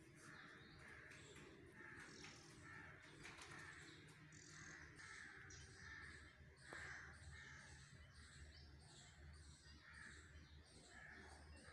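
Faint birds calling over and over, short calls repeating about once a second.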